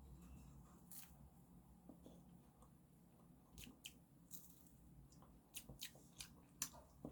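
Near silence: faint room tone with a few soft, scattered clicks and rustles of small objects being handled, more of them in the second half.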